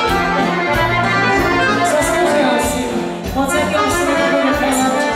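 Guerrini piano accordion playing a lively dvojka-style folk tune, backed by a band's drums keeping a steady beat.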